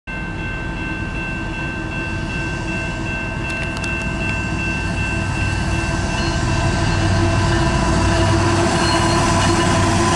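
Two GE ET44AC diesel locomotives with V12 GEVO engines approaching at the head of a freight train. A low engine rumble grows steadily louder as they near, with several steady high-pitched tones over it.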